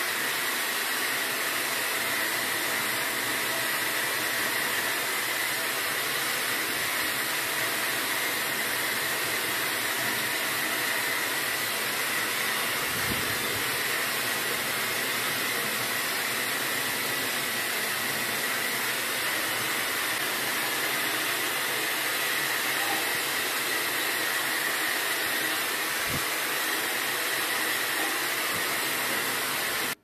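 Coshare Essence Ring hair dryer running steadily: a continuous rush of blown air with a steady high whine from its motor.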